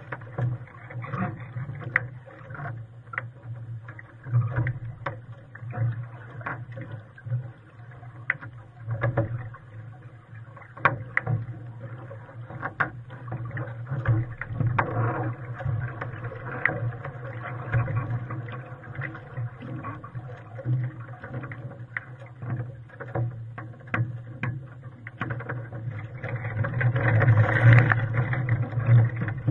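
Lake water splashing and slapping against a sailing Hobie Cat catamaran's hull close to the microphone. There is a steady low rumble under it and frequent sharp knocks, and it grows louder near the end.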